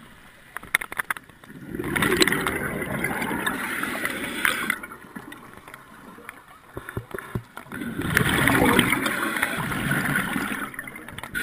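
Scuba regulator exhaust heard underwater: two long rushes of gurgling exhaled bubbles about six seconds apart, with faint clicking between them.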